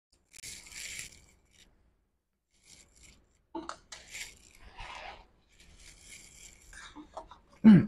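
Rustling, scraping and small clicks as a spare laptop charging port and small parts are handled at the bench, with a short, loud, low-pitched sound near the end.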